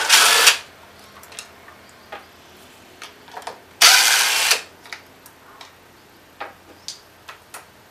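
Cordless impact driver running in two short bursts, one right at the start and another about four seconds in, backing out bolts on a mower engine's cover. Faint clicks of parts being handled in between.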